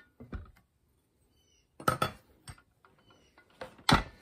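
Scattered metal clinks and knocks as a steel rip-guide bar is drawn out of an old circular saw's aluminium base and the saw is moved about on the bench, with the sharpest knock near the end.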